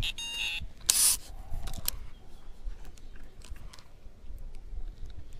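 Carp fishing tackle being handled at the water's edge: a brief beeping tone at the start, a short sharp swish about a second in, then light clicks and rustles.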